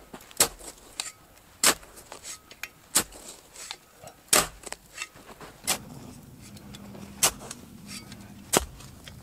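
Folding steel shovel chopping into the ground while digging a fire pit: sharp strikes about every second and a half. A low steady hum starts about halfway through.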